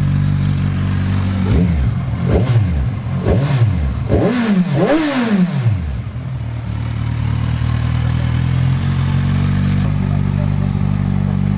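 Kawasaki Z1000's inline-four engine running through a newly fitted aftermarket exhaust: idling, then blipped sharply on the throttle several times in quick succession from about a second and a half in, the revs climbing highest near five seconds. Around six seconds in it drops back to a steady idle.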